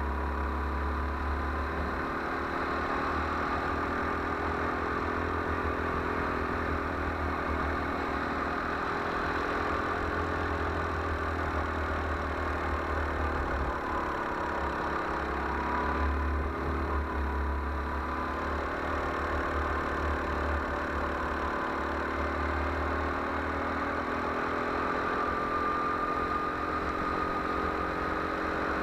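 Go-kart engine running as the kart laps the track, its pitch falling in the middle and rising again near the end with the throttle through the corners, over a low fluttering rumble.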